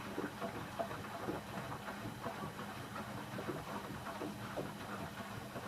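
Candy Aquamatic 1000T compact washing machine running an empty Cotton 60 descaling wash: a steady swishing and hissing of water in the drum, with a low motor hum and light irregular clicks.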